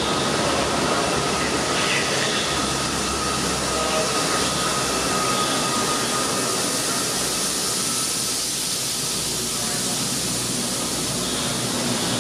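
Class 88 locomotive hauling an intermodal container freight train past at close range: a steady, unbroken rush and rumble of wheels on the rails.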